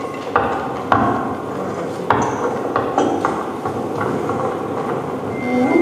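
Soundtrack of a projected video clip played over the hall speakers: a series of sharp, ringing knocks, about one every half second to second, with a steady horn-like tone starting just before the end.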